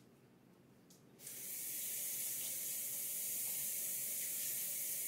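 A water tap turned on about a second in and left running in a steady stream, dousing a card that has just been burnt with a flame.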